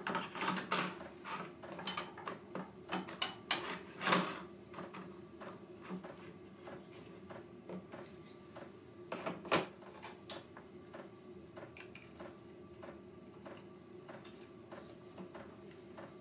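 Clicks and knocks of a plunge router and its parallel edge guide being handled and fitted on the guide rods on a wooden bench top. A quick run of sharp clicks comes first, then a louder knock about halfway through, then lighter, sparser ticks.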